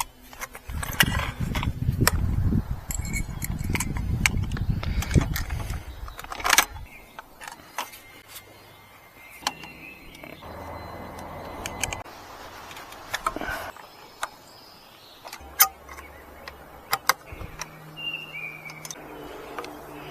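Metal parts and tools clinking and rattling in hand during e-bike assembly, many sharp clicks scattered throughout. There is a stretch of low rumbling handling noise in the first few seconds.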